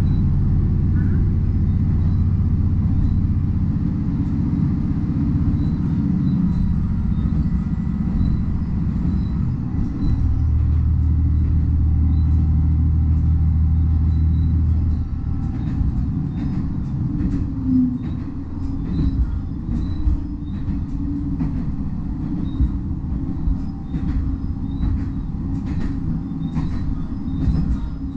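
Diesel railcar heard from inside the cabin: the engine runs steadily under power with a low drone that shifts pitch a couple of times, then about halfway through it eases off and the wheels' clicking over the rail joints comes through as the car rolls on.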